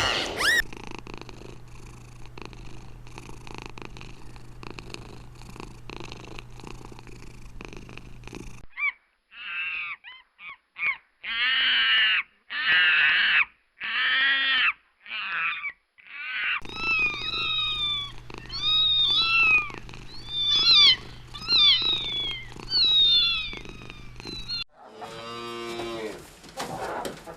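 Domestic cat purring steadily, then a run of short high-pitched meows, then more meowing with calls that rise and fall over the steady background. Near the end a lower-pitched animal call starts after an abrupt cut.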